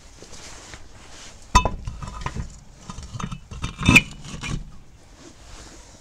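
Metal clinking and clanking as lug nuts and tools are handled on concrete during a wheel change. The two loudest clanks come about one and a half and four seconds in.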